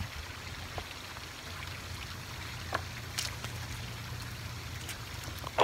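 Steady low rush of flowing water, with a few faint taps as a long-finned eel writhes on the concrete bank.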